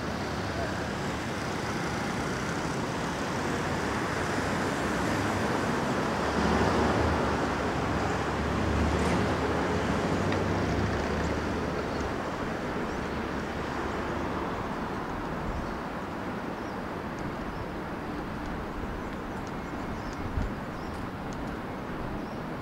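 City road traffic: a steady wash of traffic noise that swells louder with a low rumble for a few seconds about a third of the way in, then eases back.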